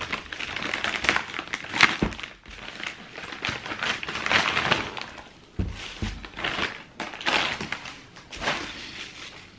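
Black plastic bag crinkling and rustling in irregular bursts as it is handled and pulled open.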